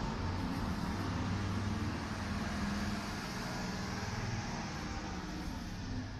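Street traffic: a motor vehicle running close by, with a steady low engine hum over tyre noise that eases slightly about halfway through.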